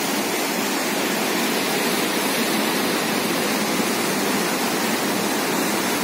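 Flooded river's fast, turbulent current rushing steadily.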